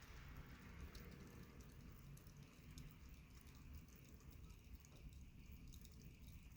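Near silence: faint low room hum with scattered small, irregular clicks.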